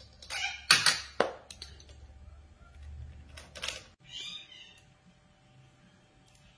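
Indian ringneck parakeet giving short scratchy calls while it rummages in a small plastic basket. Two sharp knocks of objects come about a second in and are the loudest sounds, and more calls follow around three and four seconds in.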